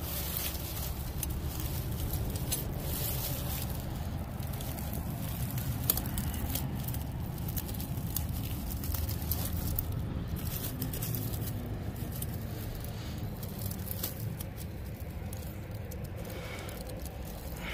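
Close handling noises of someone working by hand among brush and debris: rustling, crackling and scraping with scattered clicks and one sharper knock about six seconds in, over a steady low rumble.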